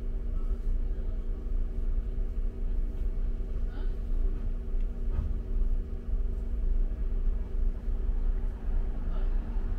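A London bus in motion, heard from inside the cabin: a steady low rumble of engine and road with a constant drivetrain hum.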